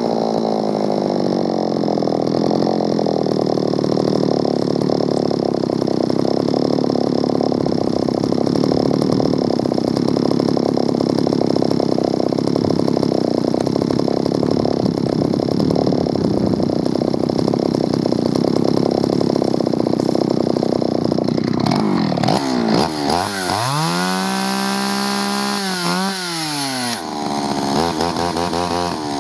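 A 1970s Solo 616 VA two-stroke chainsaw idles steadily with the chain not cutting. About 22 seconds in it is revved up and down several times on the throttle, then settles again near the end.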